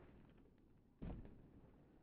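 Near silence, broken by a single dull thump about a second in that fades quickly.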